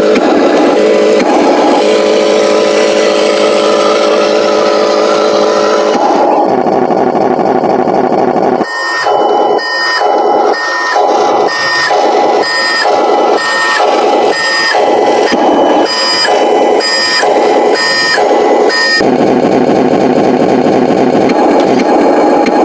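RC truck's electronic sound module playing a harsh, distorted simulated truck engine through a small speaker. For about ten seconds in the middle the sound pulses evenly about twice a second with a high beep, as a reversing beeper does while backing up.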